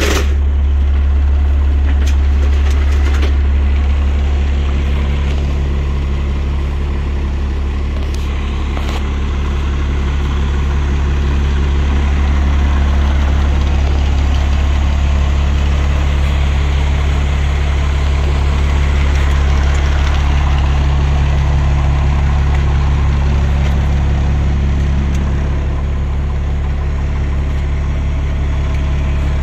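Fire pumper truck's Cummins diesel engine idling steadily with a deep, even drone.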